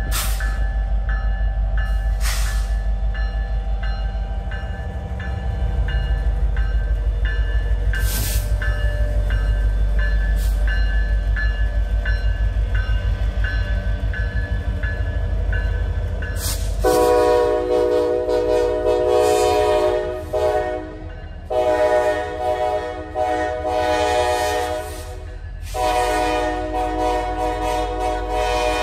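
Norfolk Southern diesel freight locomotives rumbling past close by, with a grade-crossing bell dinging steadily. About 17 seconds in, a locomotive air horn sounds three long chord blasts.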